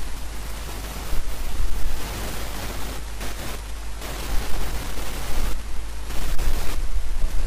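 Loud crackling hiss that swells and fades in uneven patches, over a steady low hum.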